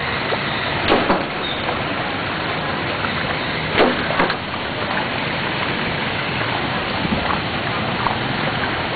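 Steady rushing noise of a flooded street in the rain, water and rain blending into an even wash, with a few short sharp sounds about one second and four seconds in.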